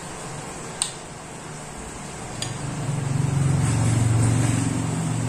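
A motor vehicle engine's low hum swells from about three seconds in and eases off near the end, like a vehicle passing. Before it there are two sharp clicks.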